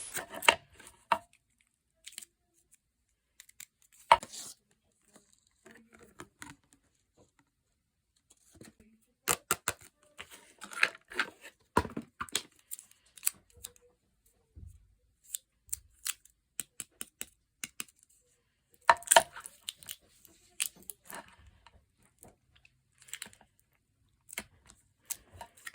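Plastic packaging being handled, picked at and torn open in fits and starts: scattered crinkles, crackles and sharp clicks with pauses between, and a soft thud about two-thirds of the way through.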